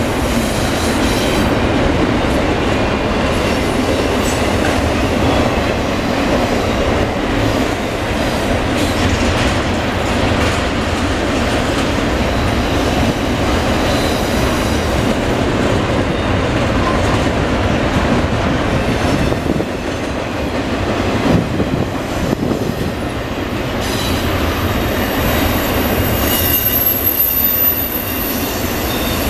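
CSX double-stack container train's cars rolling past, a steady rumble and clatter of steel wheels on the rails. A thin, high wheel squeal joins in the last few seconds.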